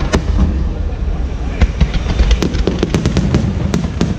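Fireworks display: a dense run of sharp bangs and crackles over a continuous low rumble of booms.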